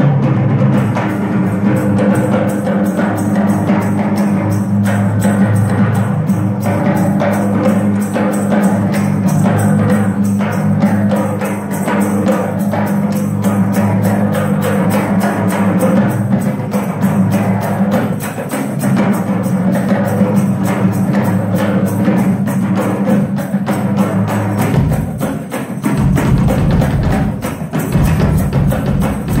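Live drum solo on a Ludwig drum kit: a rapid, unbroken run of strokes around the toms, which ring on in a steady low drone. Deeper low hits join about 25 seconds in.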